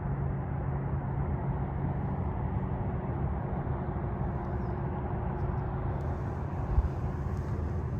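Steady rumble and hiss of a car driving along a road, with a constant low hum running under it.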